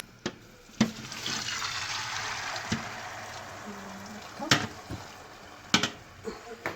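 Water poured from a cooking pot over steamed seffa vermicelli: a rushing pour of about three and a half seconds starting about a second in, with a few sharp knocks of the pot and dish around it.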